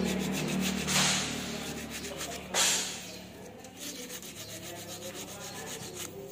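Abrasive block rubbed back and forth across the contact disc of a forklift starter solenoid plunger: a run of short scraping strokes, with two louder ones about a second in and at about two and a half seconds. It is scouring off the pitting on the contact face, the contact-point fault that keeps the starter from working.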